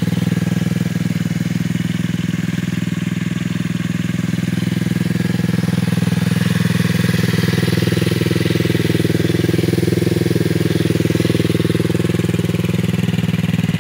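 125cc ATV's single-cylinder engine idling steadily.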